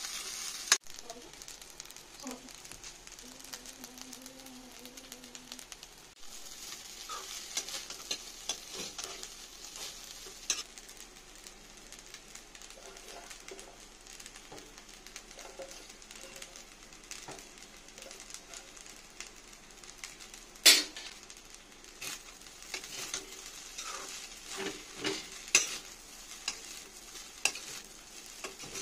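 Fried rice sizzling in a hot metal wok while a slotted metal spoon stirs and scrapes through it. Small scraping clicks run throughout, with a few sharp clacks of the spoon against the pan, the loudest about two-thirds of the way through.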